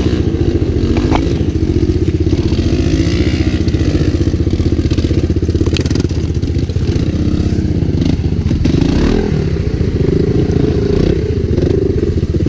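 Honda ATC three-wheelers' single-cylinder engines running at low revs, a steady, fast putting beat with small rises and falls in revs about the middle.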